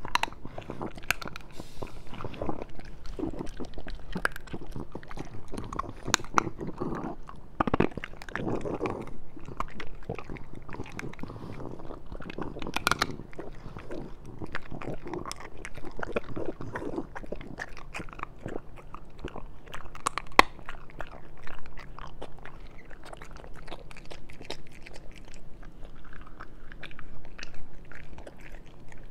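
French bulldog chewing and crunching a small raw chicken drumstick, bone and all, with irregular sharp cracks over wet chewing.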